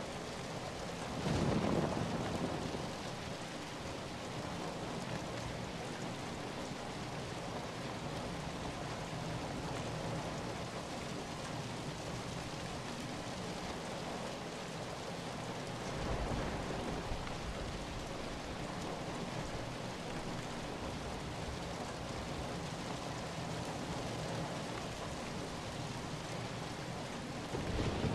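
Steady rain falling, an even rushing hiss, with a few low rumbles swelling through it: the loudest about a second in, others about midway and near the end.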